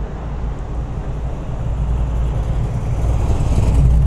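Steady low rumble of a vehicle moving along a road, growing gradually louder toward the end.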